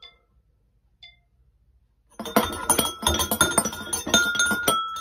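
Metal spoons clinking rapidly against ceramic bowls, the bowls ringing under the strokes. A couple of single taps come first, then a fast, dense clatter starts about two seconds in.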